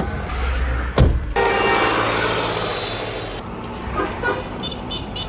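A car door shuts with a loud knock about a second in. The car then drives on with steady engine and road noise heard from inside the cabin, and a few short high beeps near the end.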